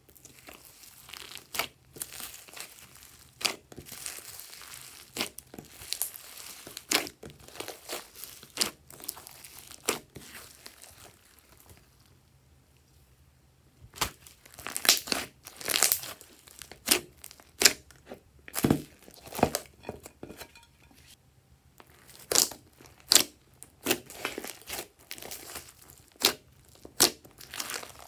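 Slime mixed with foam beads and sequins being squished, stretched and folded by hand: a string of sharp pops, crackles and squelches, with a quieter pause a little before halfway.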